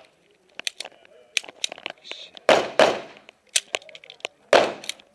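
Handgun shots at close range: two quick shots about a third of a second apart, then a single shot about two seconds later, each ringing off the range berms. Lighter sharp clicks fall between the shots.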